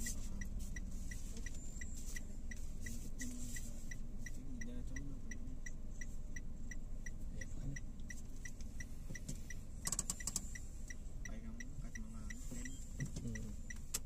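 A car's turn-signal indicator ticking steadily, about three clicks a second, over the low hum of the engine idling, heard inside the cabin. A few sharper clicks come about ten seconds in.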